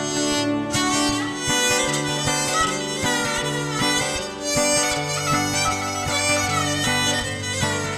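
Background instrumental music with a reedy wind-instrument melody over strings and a steady drum beat.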